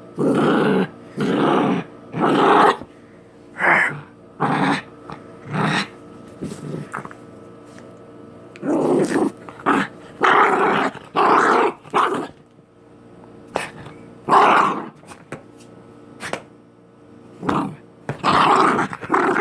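Dog play-growling at a person in a string of short, loud bursts, about a dozen, some in quick runs of two or three and others spaced a second or more apart.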